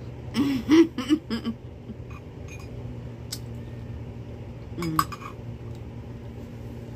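A short murmured vocal sound at the start, then a metal utensil clicking against a dish a couple of times, over a steady low hum.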